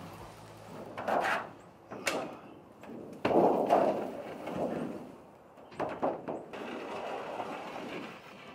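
Knocks and bumps from a large curved wall panel being worked in through a trailer's doorway, with the loudest clatter about three seconds in.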